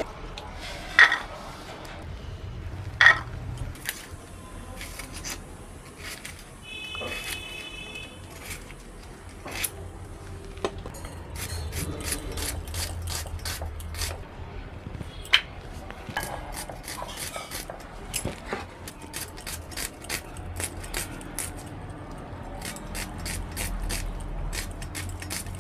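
Kitchen knife chopping vegetables on a cutting board: scattered knocks and scrapes, then a quicker, fairly even run of taps in the second half.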